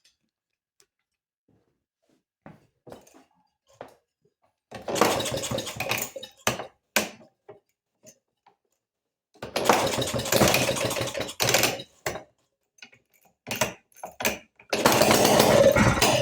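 1932 Maytag washing machine two-stroke engine trying to start after decades of sitting. It catches in three short runs of a second or two, with scattered single pops between them. Each of the first two runs cuts out again, and the third is still running near the end.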